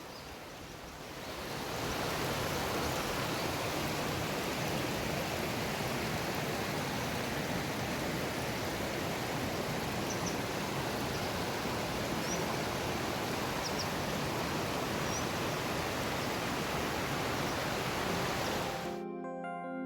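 Mountain stream rushing over rocks, a steady wash of water that swells up over the first two seconds, with a few faint high chirps around the middle. Near the end the water cuts off abruptly and music starts.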